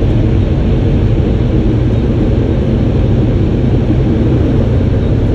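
Touchless car wash air-dryer blowers running steadily, a loud, even, deep rush of air heard from inside the car.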